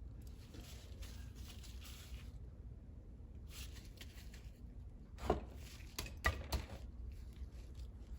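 A few sharp metallic clinks and knocks in quick succession about five to six seconds in, after faint rustling: the shop press's plates and the axle shaft being loosened and shifted to recenter the bearing.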